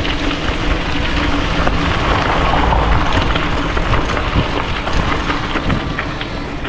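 Wind buffeting a GoPro action camera's microphone during a bike ride, a loud rushing noise, with scattered small clicks and rattles through it.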